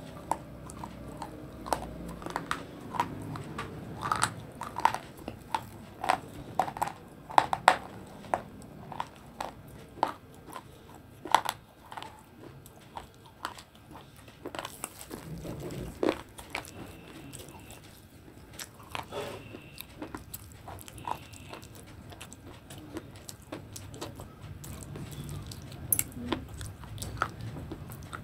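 Biting and crunching pieces of hard, dry dark-grey slate stone. The crisp crunches come thick and fast for the first dozen seconds, then thin out to slower chewing.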